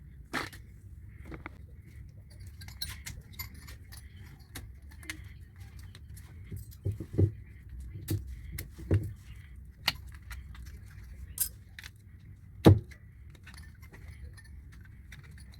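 Irregular metallic clicks, clinks and knocks of tools and parts being handled, over a low steady hum; one knock about three-quarters of the way through is the loudest.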